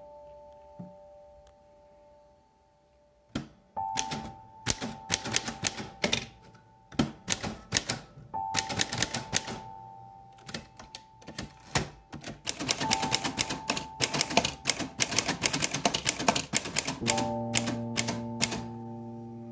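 Corona manual typewriter being typed on: quick runs of key and type-bar strikes against the platen, starting about three and a half seconds in and carrying on in bursts. Soft music with held notes plays underneath, swelling into a fuller chord near the end.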